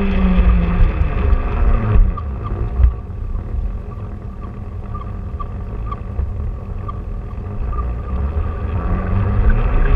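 Small electric motor of a self-propelled garden-railway wagon whining as it runs, with its wheels rumbling along the track under the on-board camera. The whine drops in pitch over the first two seconds. The running then turns quieter, with light regular clicks, and the whine comes back, rising in pitch, near the end.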